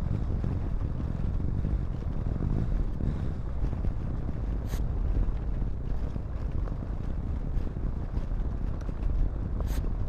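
Wind buffeting the microphone on a moving motorbike: a steady low rumbling rush, with two faint clicks, one about halfway through and one near the end.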